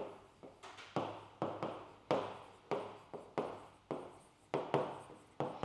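A stylus writes on the screen of an interactive touchscreen whiteboard: a run of short taps and scratches, roughly two a second, as the words are handwritten.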